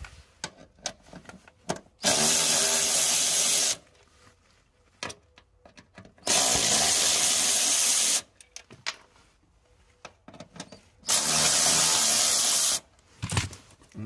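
Cordless electric ratchet with a Torx T30 bit backing out three bolts, running in three steady spells of about two seconds each, with small clicks between them.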